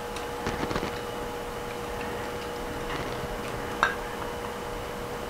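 Light metallic clicks and taps as a Porsche 912 piston and its wrist pin are handled and lined up on a connecting rod, with one sharper click near the end. A faint steady hum runs underneath.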